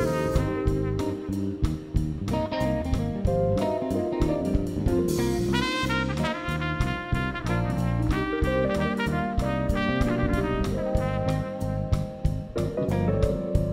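Live band playing: trumpet and saxophone carry the melody together over electric guitar, keyboards, electric bass and a drum kit keeping a steady beat.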